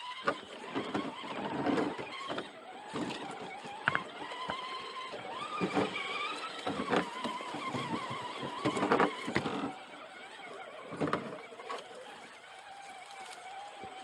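Electric motor and gear drive of an RC rock crawler, whining and rising and falling in pitch with the throttle as it crawls over rocks, with irregular knocks and clacks. It eases off about ten seconds in.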